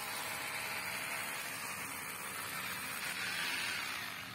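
Steady, even hiss with no distinct knocks or tones.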